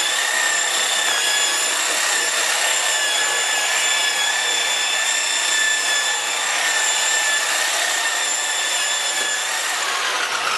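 Power buffer running steadily with a high whine while polishing out scratches on a motorcycle's paint and front rim, its pad rubbing on the surface; it starts to wind down right at the end.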